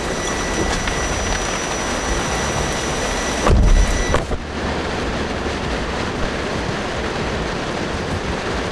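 Heavy rain falling on a campervan, heard from inside the cab. About three and a half seconds in, a door shuts with a heavy thump, after which the rain sounds duller. A faint steady high tone stops at the same moment.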